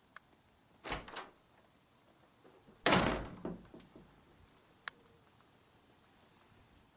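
A door: a handle and latch rattling about a second in, then the door shut hard about three seconds in, dying away over about a second. A small click follows near five seconds.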